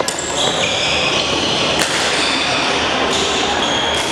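Athletic shoes squeaking on a hardwood sports-hall floor, several drawn-out high squeaks overlapping, with two sharp cracks of a racket striking a shuttlecock, one at the start and one just under two seconds in.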